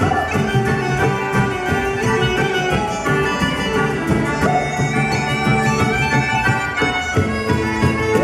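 A live Irish traditional tune on uilleann pipes and concertina, with steady held drone notes under the melody and guitar and bodhrán keeping the rhythm.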